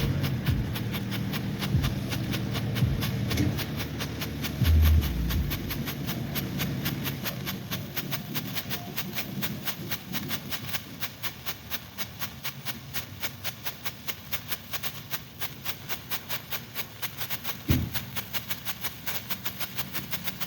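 Strobe firework (strobe pot) burning, giving a rapid, even series of sharp crackling pops, about three to four a second, one pop for each flash. A couple of dull thumps stand out, one about five seconds in and one near the end.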